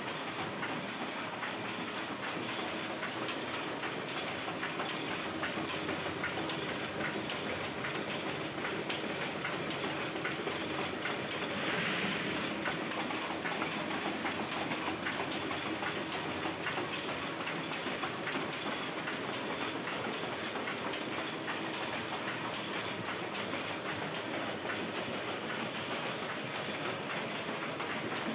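Rota small offset printing press running. Its mechanism makes a steady, rapid ticking clatter over a constant hiss, briefly louder about twelve seconds in, as it inks and prints sheets.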